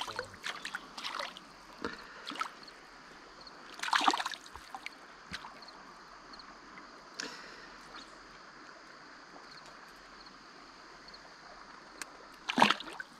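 A hooked trout splashing at the surface as it is played to hand, with a few short splashes in the first second or so and another about four seconds in, over the faint steady rush of the creek. The loudest splash comes near the end as the fish is lifted from the water.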